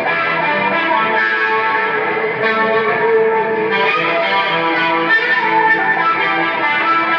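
Music: electric guitar played through effects, with sustained notes and light distortion and chorus.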